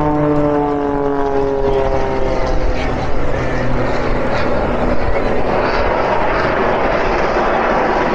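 Display jet passing overhead: its engine whine, several tones together, falls in pitch over the first few seconds as it goes by, then gives way to a steady rushing jet noise.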